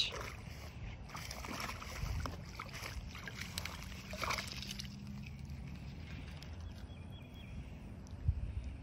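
A hooked bass splashing and thrashing in shallow water at the bank, with choppy bursts of sloshing through the first few seconds that then settle. A single thump near the end.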